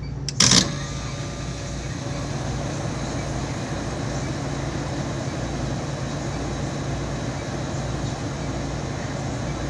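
Refrigeration compressor unit running with a steady mechanical hum and noise, broken by one sharp, loud clunk about half a second in.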